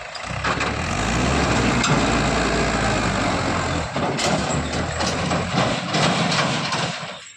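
Tractor diesel engine running loud under load, with a steady low drone through the first few seconds.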